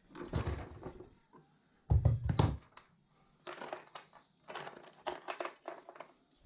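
Metal parts clinking and knocking against each other in several short handled groups, the heaviest knock about two seconds in.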